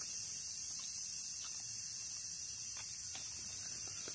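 Quiet outdoor background: a steady high hiss with a few faint, light ticks scattered through it.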